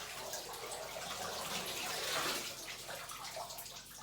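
Water sloshing and splashing in an ice bath as a person moves in the icy water, swelling briefly about halfway through.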